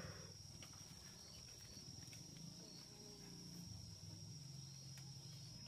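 Near silence: faint outdoor ambience with a steady high-pitched insect drone and a low hum, broken by a few faint ticks.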